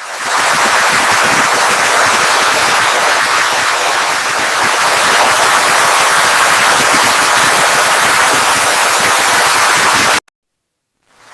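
Loud, harsh static-like noise with a crackling texture, the effects-laden soundtrack of a TV channel bumper played in reverse. It swells up at the start, holds steady, and cuts off suddenly near the end.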